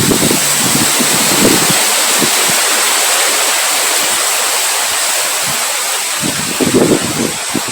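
Heavy rain falling in a steady, loud hiss, with gusts of wind buffeting the microphone near the start and again in the last second or two.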